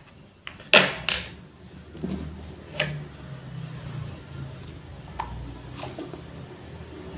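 Wooden toy food pieces and a toy knife clacking against each other and a board, in a handful of sharp knocks: the loudest pair comes just under a second in, and single ones follow every second or so.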